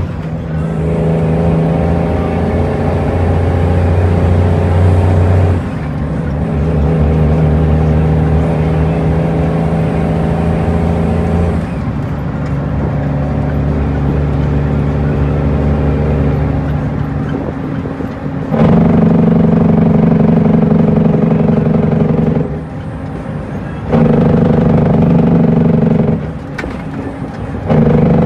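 Cummins N14 inline-six diesel of an International truck, heard from inside the cab while driving. Its note changes in steps several times, with two short dips where the engine eases off before pulling hard again, as the truck works through its 13-speed gearbox.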